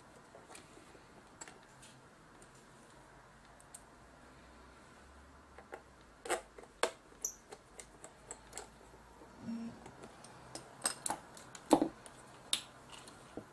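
Hands fitting parts and a cable onto a JVC GY-HD201E camcorder: quiet for about the first five seconds, then scattered short clicks and taps, the loudest about two seconds before the end.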